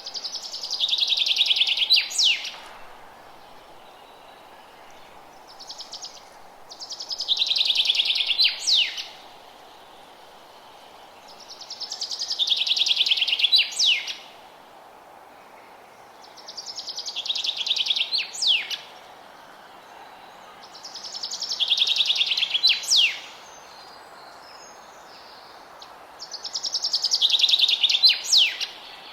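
A songbird repeating the same song six times, about every five seconds. Each song is a fast trill of about two seconds that swells in loudness and ends in a couple of sharp slurred notes. A steady faint hiss runs underneath.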